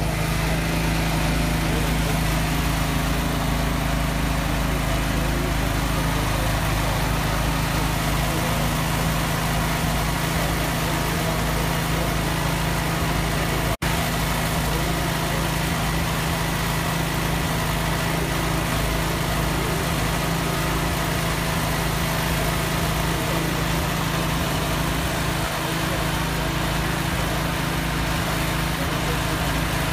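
An engine idling steadily; the sound cuts out for an instant about halfway through.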